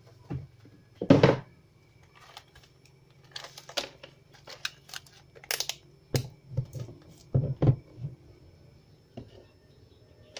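Handling clicks and knocks as an analog multimeter is moved into place and its rotary range selector is turned, with a louder knock about a second in. A low steady hum runs underneath.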